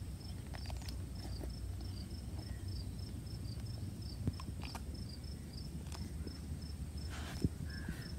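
An insect chirping steadily in a short, high, fast-repeating pattern, about four chirps a second, over a low steady rumble. A few sharp clicks and a short wet smack near the end come from biting and chewing juicy cashew apples.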